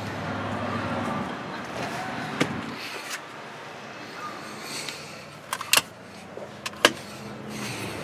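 Sharp plastic clicks and knocks from handling a car's rear-seat fold-down armrest, a couple of light ones about two and a half seconds in and a louder cluster around six to seven seconds, over a low steady hum that fades about three seconds in.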